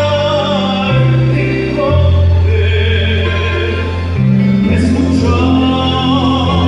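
Christian worship song: a sung melody over held bass notes that change about once a second, with fuller accompaniment.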